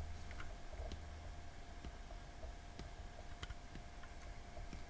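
Faint, scattered small clicks and taps of a die-cast metal toy tanker trailer being handled and turned over in the hands, over a faint steady hum.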